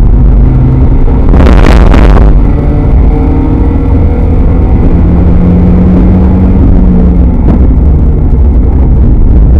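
Spec Miata race car's inline-four engine, heard from inside the car at racing speed and very loud. About a second and a half in there is a brief harsh burst of noise lasting under a second. After it the engine pulls on with a steady note that rises gently.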